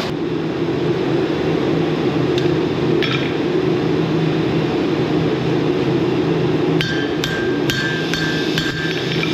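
Several light hammer strikes on steel, the first two spaced apart and then four or five in quicker succession near the end, each leaving a short metallic ring. They sit over a steady low roar that is the loudest thing throughout.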